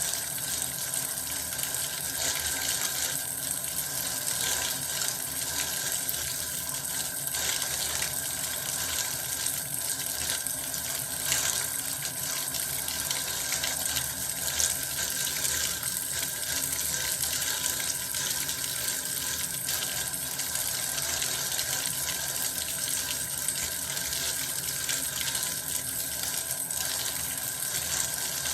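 Bath water running steadily from a tap, an even unbroken rush of pouring water.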